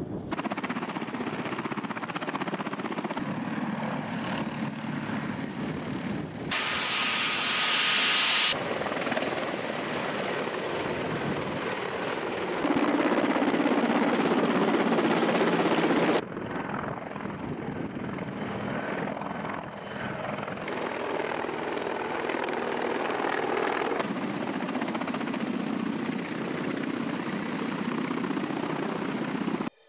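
Military helicopters' rotors and turbine engines running, in several shots cut together; the sound jumps in level at each cut and is loudest for a couple of seconds about 7 seconds in and again from about 13 to 16 seconds in.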